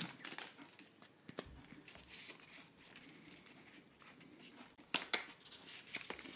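Pokémon trading cards handled in the hands, faint: soft sliding of the cards as a freshly opened booster pack is fanned out and gathered, with a few light clicks, two of them close together near the end.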